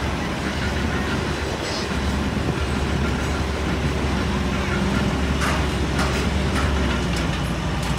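Mobile crane's diesel engine running steadily with a low drone, getting slightly stronger about two seconds in, with a few light metallic ticks near the end.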